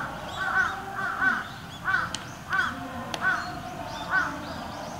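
A crow cawing over and over, about seven harsh caws a little under a second apart. A single sharp click comes about two seconds in.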